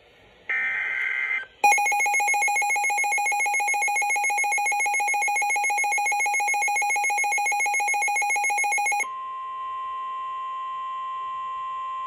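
NOAA weather radio sounding a new alert. A brief screech of the alert's data header comes first. About a second and a half in, a loud electronic alarm tone pulses rapidly for about seven seconds, then gives way to a single steady warning tone that holds to the end.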